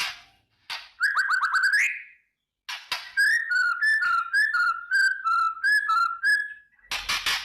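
White-rumped shama (murai batu) singing: a rapid rising trill about a second in, then a run of clear, varied whistled notes. Near the end come harsh rasping crackles, the bird's 'kretekan' call, which is given when it is aroused for a fight.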